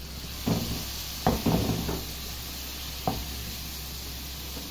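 Spiced potato pieces sizzling steadily in a nonstick frying pan with a little water just added, while a silicone spatula stirs them and knocks against the pan a few times, about half a second, a second and a half and three seconds in.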